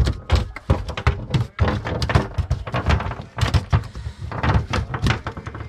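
Rapid, irregular knocks and thumps against an aluminium boat's checker-plate deck and fittings, as gloved hands handle gear and a freshly caught fish on the floor.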